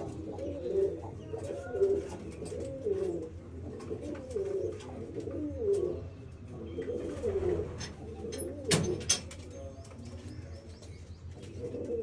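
Domestic pigeons cooing over and over, about one coo a second, with a couple of sharp knocks about three-quarters of the way through.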